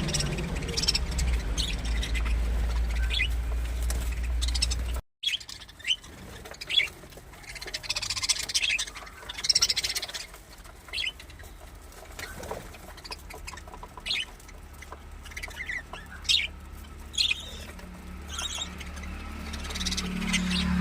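Birds calling in short, sharp chirps, on and off. A low rumble sits under the first five seconds and stops abruptly.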